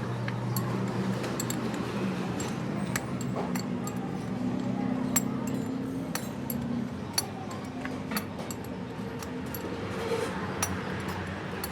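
Scattered sharp metallic clinks of metal tools and parts being handled during a tie rod end repair, over a steady low hum.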